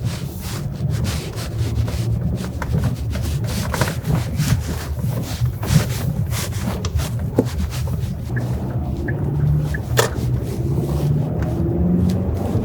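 2013 Hyundai Santa Fe Sport under way on a test drive, its replacement 2.0-litre turbo engine and tyres giving a steady low rumble. Frequent short clicks and rubbing noises sound over it.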